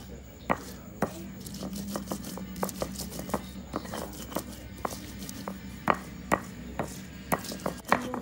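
Stone pestle pounding and grinding fresh red chilies on a flat stone mortar for sambal: irregular stone-on-stone knocks, about one or two a second, with soft squashing between them.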